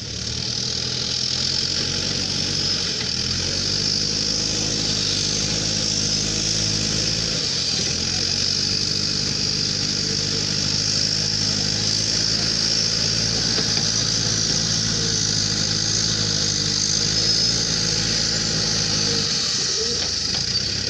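JCB 3DX backhoe loader's diesel engine running steadily, its pitch shifting a few times as it works, with a constant high hiss over it.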